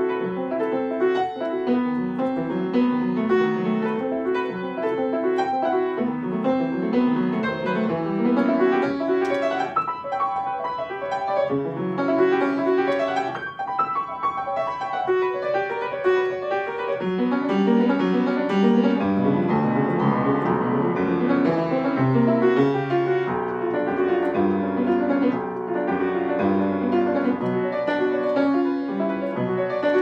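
Upright piano played solo, a continuous stream of many notes in both hands without a break.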